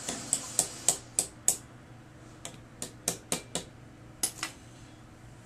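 Sharp metallic clicks and taps from a GMC Yukon ignition lock cylinder and its housing being handled: a quick run of about six in the first second and a half, another run of five or six in the middle, and two more near the end.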